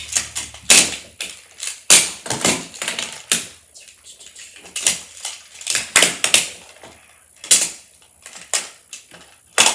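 Plastic magnetic building blocks clicking and clacking irregularly as pieces are snapped together and shuffled during building.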